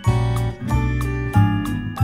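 Background music: a melody of short pitched notes over a bass line.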